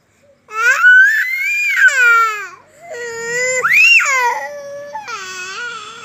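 A toddler crying hard in three long wails with short breaks for breath, the second rising to a high, shrill peak. The crying is from hunger.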